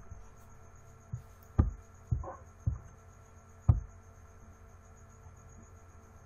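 About five scattered clicks and thumps from a computer mouse and keyboard in the first four seconds, over a faint steady electrical hum.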